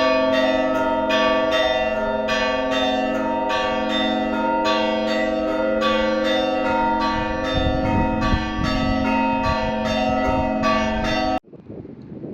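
Orthodox church bells rung in a rapid peal: several bells of different pitch struck about three times a second over steadily ringing lower bells. The ringing cuts off suddenly near the end, leaving faint wind noise.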